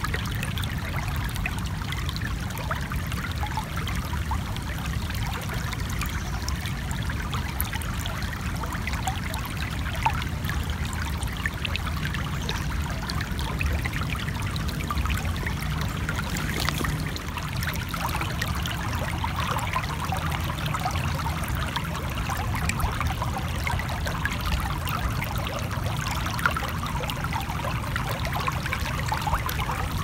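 Shallow stream flowing over a stony bed: a steady trickling and splashing of water.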